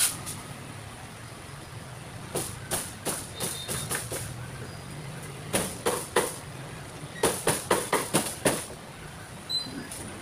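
Cleaver chopping roast chicken on a chopping board: a run of sharp chops from about two seconds in, three more near the middle, then a quick run of about seven near the end, over a steady low hum.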